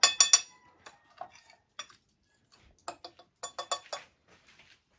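A spoon clinking against a bowl as fish pieces are stirred through a flour and spice seasoning. A quick run of ringing clinks at the start, a few scattered light taps, then another run of clinks about three to four seconds in.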